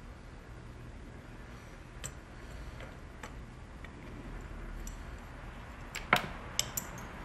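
Small parts being handled and pressed onto a steering wheel hub by hand: a few faint clicks and taps, then a quick run of sharper clicks about six seconds in.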